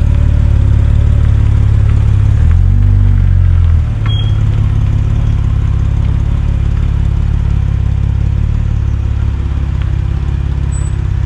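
Mercedes-Benz W124 300CE's straight-six engine running as the car creeps forward, with a low, steady exhaust note. The note rises briefly about two and a half seconds in, then settles a little quieter from about four seconds as the car moves away.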